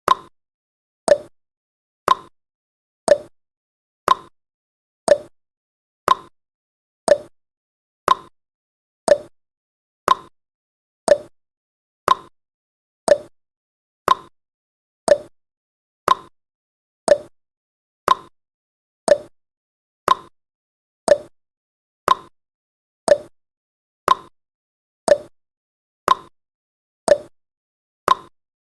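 Countdown timer's ticking sound effect: a short, sharp pitched click once every second, each dying away at once, with silence in between.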